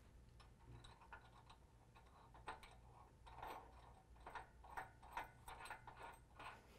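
Faint, irregular metallic clicks of a flat washer, lock washer and nut being fitted and turned by hand onto a steel tab bolt, sparse at first and coming closer together and louder in the second half.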